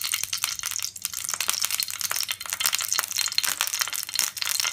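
Ghee sizzling and crackling as it melts in a hot nonstick pan, a dense run of small, rapid pops.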